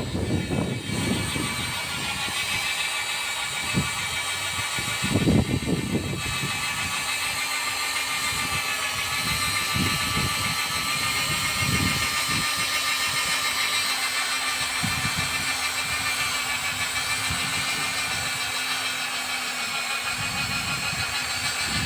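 Handheld polyethylene extrusion welder running steadily: an even motor whine with many high overtones and a hiss of air, with low thumps and rumbles at intervals.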